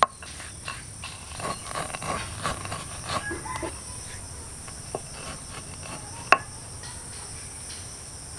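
Stone roller crushing dry-roasted whole spices and dried chillies coarsely on a shil grinding stone: a run of irregular knocks and crunches for the first three seconds or so. Insects chirr steadily throughout, and two sharp clicks come near the end.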